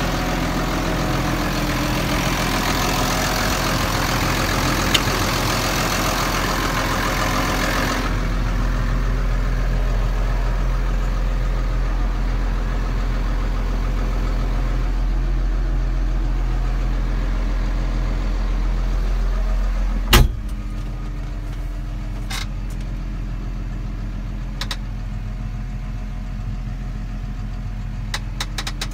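New Holland T7030's six-cylinder diesel idling with a steady low hum. The high hiss of the engine bay drops away about eight seconds in, leaving the muffled note heard inside the cab. About twenty seconds in comes a single loud knock, after which the engine is quieter still, with a few light clicks near the end.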